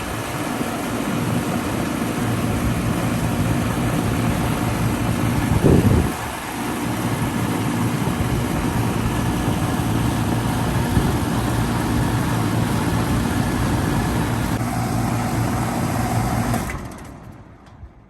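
A 1994 3-ton Goodman CK36 central air conditioner condensing unit running with a steady low hum and fan noise, with a brief low rush of noise about six seconds in. Near the end the unit shuts down and its sound dies away over about a second.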